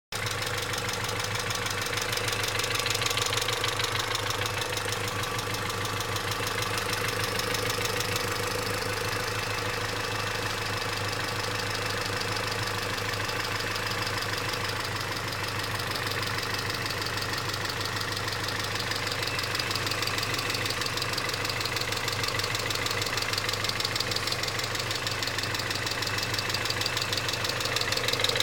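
Volvo V40 engine running steadily at idle, heard close up under the bonnet, with a rapid, even knocking from inside the engine: the knock the owner is trying to trace.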